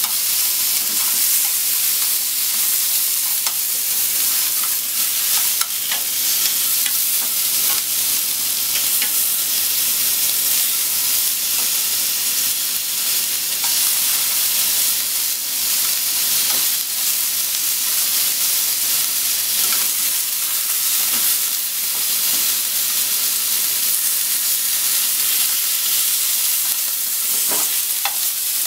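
Cubes of pork belly sizzling steadily in hot fat in a nonstick frying pan, with scattered light clicks of chopsticks turning the pieces.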